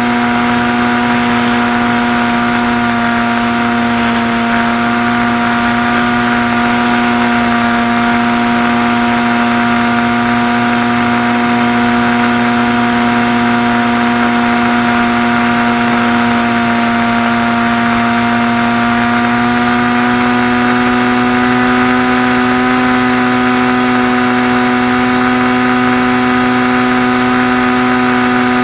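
Electric motor and propeller of a Skywalker radio-controlled plane, running with a steady whine that shifts slightly in pitch as the throttle or airspeed changes.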